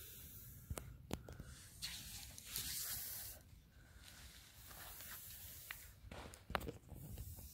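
Scuffing and rustling on dry beach sand, with a few sharp clicks and two longer hissing rushes, the louder one around the middle.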